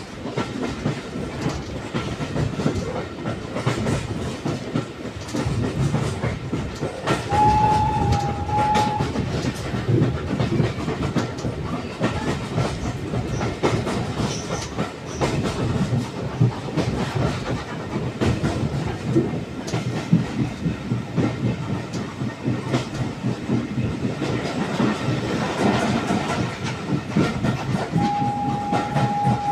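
Steam-hauled passenger train running at speed behind Southern Railway U class locomotive 31806, heard from inside a carriage: a steady rumble with wheels clicking over the rail joints. The locomotive's whistle sounds twice, a short single-note blast about a quarter of the way in and a longer one near the end.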